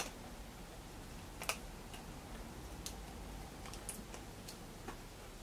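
A few faint, scattered clicks and taps of hands working a hard plastic 1980s He-Man action figure, pressing its leg into the hip; the sharpest click comes about a second and a half in.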